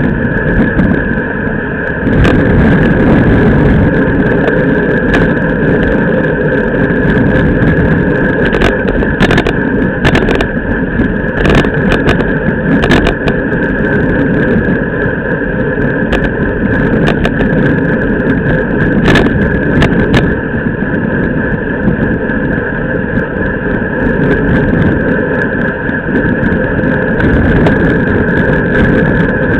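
Steady, loud rush of wind buffeting a camera mounted low on a road racing bicycle, mixed with tyre and road noise from the bike riding at speed in a pack. Sharp clicks or knocks come now and then, most of them in the middle stretch.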